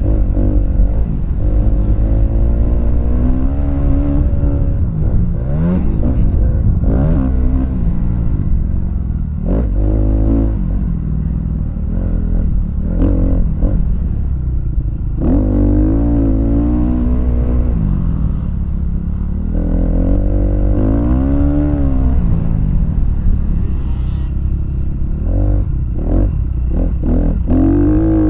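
Motocross dirt bike engine revving up and falling back again and again as the bike accelerates, shifts and slows through the track's turns and jumps, heard from on the bike over a constant low rumble.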